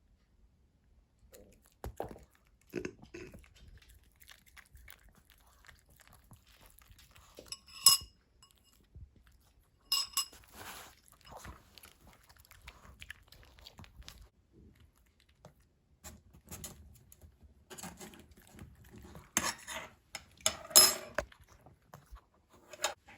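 Kitchenware being handled during food preparation: irregular knocks, taps and clinks of utensils against dishes. The loudest are sharp ringing clinks about eight seconds in and again about twenty-one seconds in.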